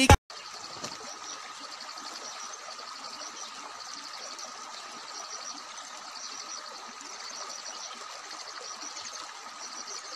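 Steady outdoor hiss with faint high-pitched chirps repeating in short runs.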